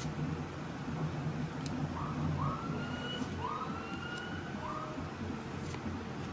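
A faint emergency-vehicle siren sounding for about three seconds in the middle, in short rising wails, over a steady low room hum.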